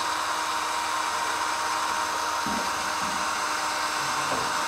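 Cordless drill running steadily with a steady whine, a 4 mm bit drilling pilot holes through a Land Rover Discovery's front wing panel.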